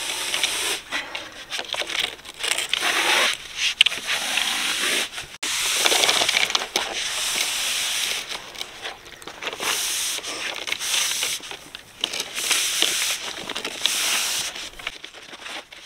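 Black plastic water pipe being handled with gloved hands: irregular rubbing and scraping strokes as the coil is pulled straight, some lasting a second or more.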